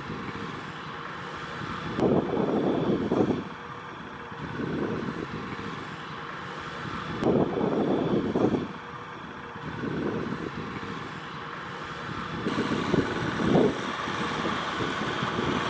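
Kubota M6040SU tractor's diesel engine working under heavy load as the tractor pushes through deep mud, its sound surging louder every few seconds.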